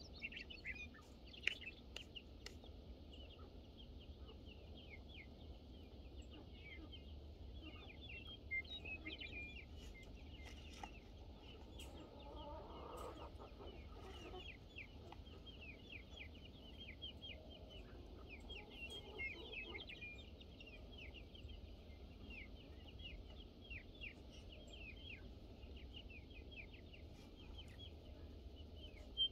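Chickens clucking faintly, with rapid high chirping and peeping throughout and a longer, lower call about twelve seconds in.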